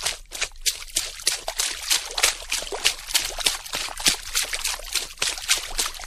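Water splashing in a quick, irregular run of splashes, several a second, without a break.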